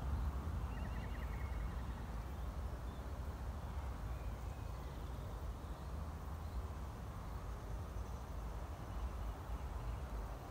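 Open-field ambience: a steady low rumble under a soft even hiss, with a short faint bird trill about a second in.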